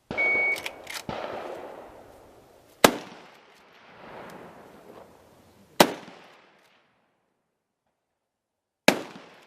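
A shot timer's short beep, then about five gunshots at uneven intervals of one to three seconds, each followed by an echoing tail.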